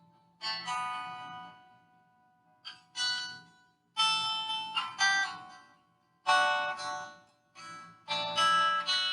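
Instrumental music on a plucked string instrument: chords struck and left to ring out, in short phrases with brief pauses between them.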